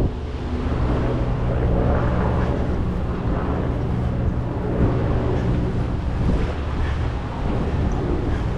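A large engine droning steadily in a low hum, mixed with wind buffeting the microphone.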